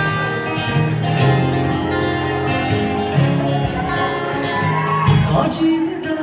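Music: acoustic guitars playing chords, with a voice singing over them.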